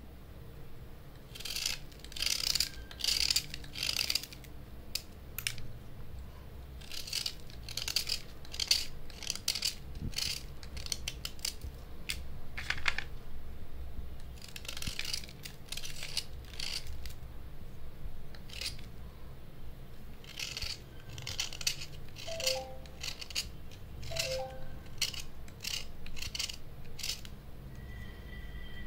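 Steel knife blade scraping the outer layer off Minakshi slate pencils, in runs of quick dry scraping strokes with short pauses between them.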